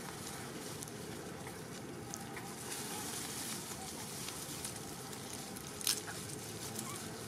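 Steady outdoor background hiss with light crackling, and one sharp snap about six seconds in.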